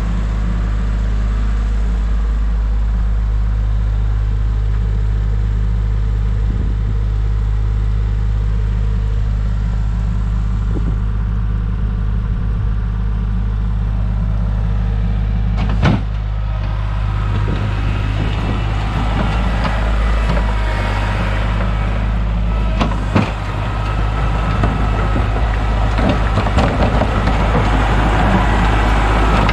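Kubota L3301 tractor's three-cylinder diesel engine running steadily, with a sharp knock about halfway through and another a few seconds later, and the engine noise growing busier in the second half.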